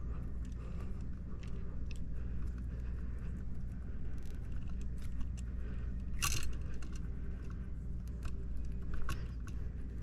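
Small clicks, scrapes and rustling from hands handling and pulling out electrical wires, with a louder rustle about six seconds in, over a steady low hum.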